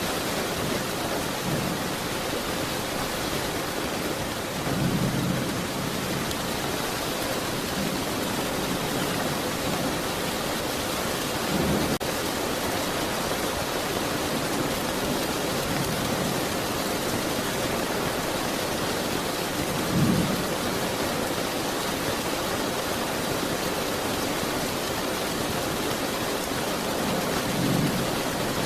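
Steady heavy rain, an even hiss, with four brief low rumbles of thunder spread through it; the loudest comes about two-thirds of the way in.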